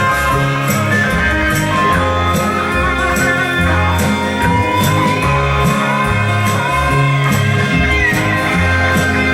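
Rock music with guitar over bass notes and a steady cymbal beat about twice a second. A high held note slides upward about four seconds in.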